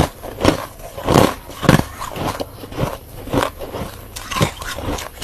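Freezer frost being bitten and chewed close to the microphone, a sharp crunch about every half second.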